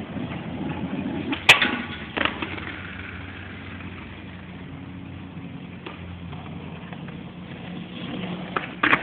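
Skateboard wheels rumbling over street pavement, with sharp board clacks: a loud one about a second and a half in, another soon after, a faint one midway and a quick double clack near the end.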